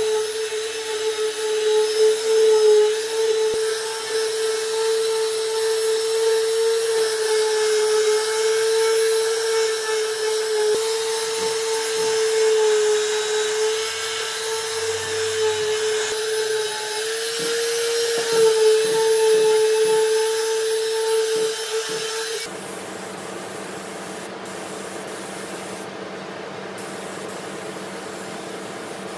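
A handheld power tool's electric motor running with a steady high whine that wavers slightly in pitch as it works the wood. About three quarters of the way through it cuts off abruptly and gives way to a quieter, even hiss with a low hum.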